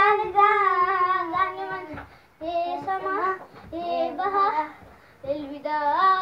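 A young boy singing without accompaniment: one long phrase with held notes, then three shorter phrases separated by brief pauses.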